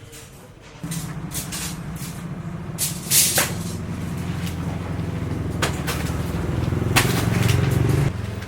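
A motor or engine running steadily, starting about a second in and cutting off suddenly near the end, with several sharp metallic knocks over it.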